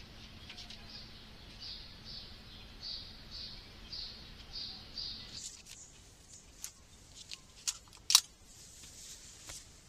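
A bird chirping about twice a second, which stops after about five seconds. Then come a few sharp clicks and taps of tools and a case being handled on a workbench, the loudest about eight seconds in.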